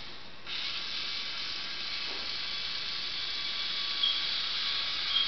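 Lego Mindstorms NXT servo motors and plastic gears whirring as the monkey robot swings along a bar. The whirring starts about half a second in, and two short high squeaks come near the end.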